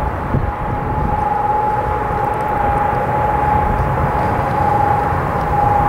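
Twin-turboprop airliner on final approach: a steady engine whine over a low rumble.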